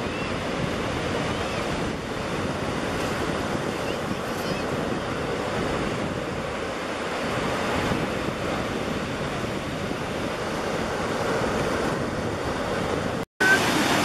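Ocean surf on a beach: a steady wash of breaking waves, with wind buffeting the microphone. The sound breaks off for an instant near the end, then carries on.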